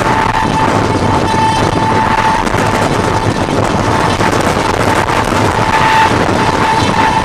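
WCAM3 electric locomotive's horn sounding in a string of blasts, one steady note cut off and restarted every second or so, over the loud rush and rumble of the train running at speed.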